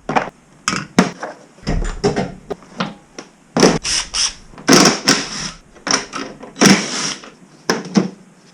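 Irregular sharp clicks and knocks mixed with a few short rustling swishes, like hands handling objects or tools at close range.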